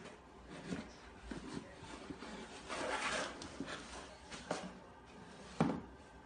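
A cardboard carton scraping and knocking lightly on the floor as a cat pushes it along with its head stuck inside, with a longer scrape about three seconds in and a sharper knock near the end.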